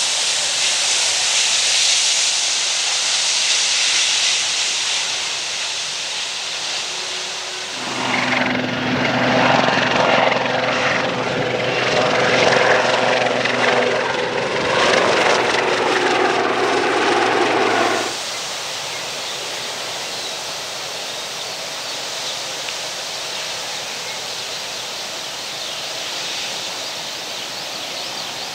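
Boeing 757 jet engines at taxi power, a steady hiss and whine. About eight seconds in, this cuts abruptly to a louder Kaman SH-2G Super Seasprite helicopter flying by, its turbines and rotor with a low steady drone, which stops just as abruptly about ten seconds later. Then the 757's jet hiss returns, steady and a little quieter, as the jet taxis away.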